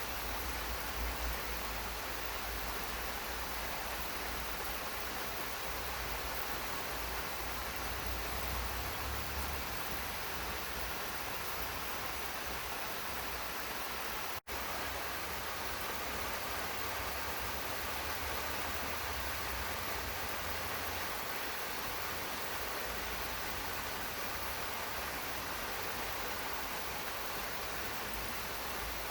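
Steady rain falling, an even hiss with no single drops standing out. It cuts out for a split second about halfway through.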